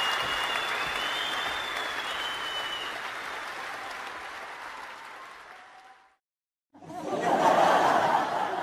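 Crowd applauding, with a few whistles over it in the first three seconds, fading out over about six seconds. After a brief silence, a new sound effect of an audience laughing starts near the end.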